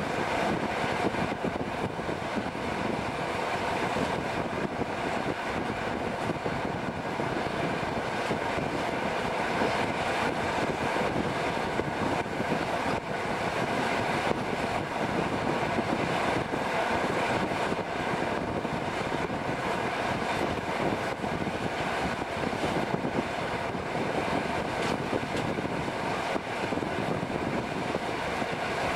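Passenger train running at speed, heard from an open coach window: a steady rush of wheels on rail and air streaming past.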